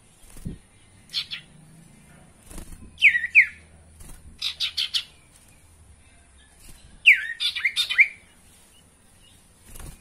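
Iora (sirtu, cipoh) singing: a short chirp, then two falling whistled notes, a quick run of five or six sharp notes, and near the end a tumbling cluster of falling whistles.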